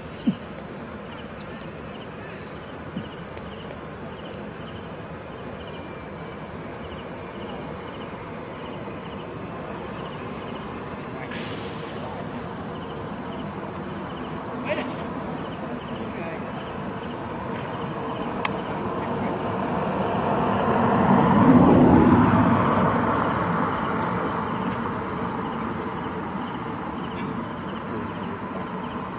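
A steady, high-pitched chorus of insects such as crickets or cicadas. A broad, low rumbling noise swells to a peak about two-thirds of the way through and then fades away, with a few faint clicks scattered through.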